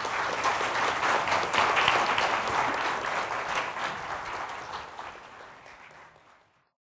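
Audience applauding. It swells to its loudest about two seconds in, then fades away and cuts off suddenly near the end.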